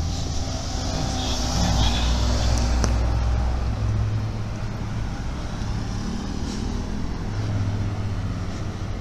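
Road traffic: cars driving past at close range, a low engine rumble over tyre hiss, strongest in the first few seconds and rising again near the end.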